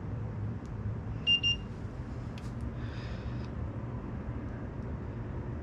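Microwave oven running with a steady hum, heating soft plastic baits to melt them down, and giving two short electronic beeps about a second in.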